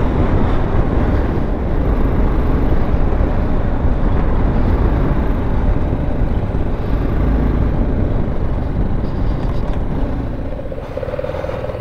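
Motorcycle riding along at speed, its engine running under heavy wind noise on the microphone. About ten seconds in, the wind and overall level ease as the bike slows onto gravel, and a steadier engine note comes through.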